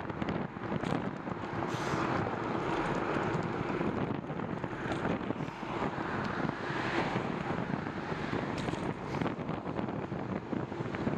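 Wind rushing over the microphone of a camera on a moving bicycle, mixed with tyre and road noise and traffic on a multi-lane road. The noise swells twice, about two seconds in and again around seven seconds.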